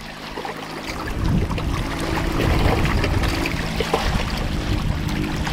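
Small Yamaha outboard motor pushing a canoe, a steady low drone that grows louder after the first second or so as the canoe comes close. Choppy lake water slaps against the shore over the top.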